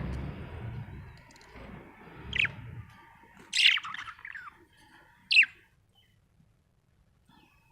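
Budgerigar chirping: three short, sharp calls, each a quick falling sweep, between about two and five and a half seconds in. A low rumbling noise runs under the first three seconds.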